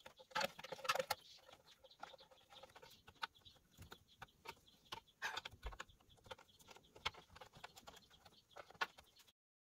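Irregular light metallic clicks and taps of a wrench and fingers working bolts loose on the engine's fan shroud, ending abruptly near the end.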